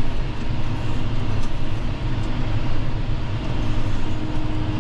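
John Deere tractor's engine running steadily under load while pulling a subsoiler, heard from inside the cab as a constant low drone. A faint steady whine joins near the end.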